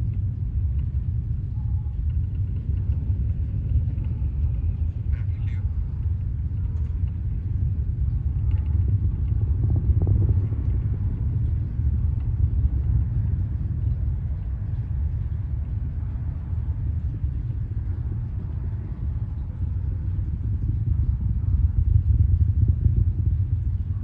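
Deep, steady rumble of a Falcon 9 rocket launch heard from a distance, the sound of its first-stage engines on ascent.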